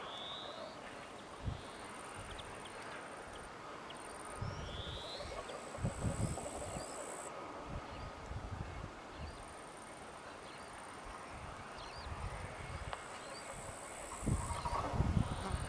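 Birds chirping and calling over a low, uneven rumble of distant heavy machinery. The rumble swells near the end.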